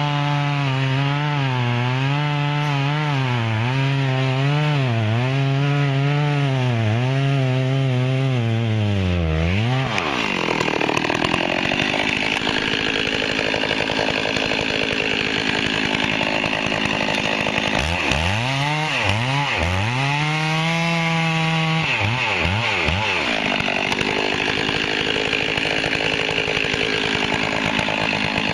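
Stihl chainsaw cutting a large log. The engine runs under load with its pitch wavering, then about ten seconds in the sound turns harsher and noisier as the chain cuts at high revs. The engine pitch briefly dips and climbs again a little past the middle.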